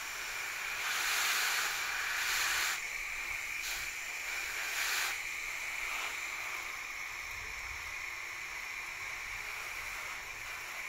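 Garden hose shower nozzle spraying a fan of water that spatters onto large leaves: a steady hiss that grows louder for a couple of seconds about a second in, and briefly again around five seconds in.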